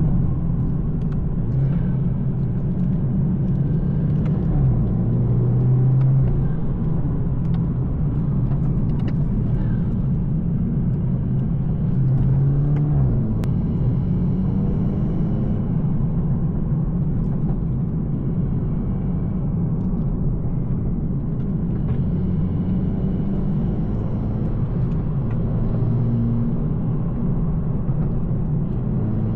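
BMW 220i's turbocharged B48 2.0-litre four-cylinder engine and tuned exhaust running under a steady drive, with road rumble. The engine note swells briefly twice, about five and twelve seconds in, under light throttle.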